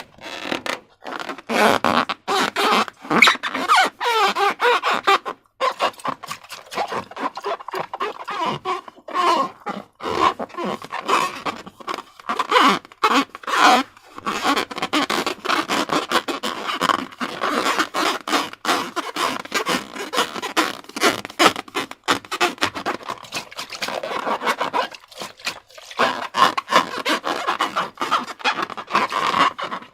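Hands squishing and stretching slime against balloon rubber: continuous wet, crackly squelching and rubbing, with a few brief pauses.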